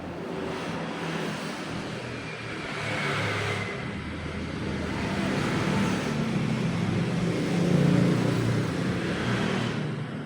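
Motor vehicle engine running, rising and falling in level, loudest about eight seconds in.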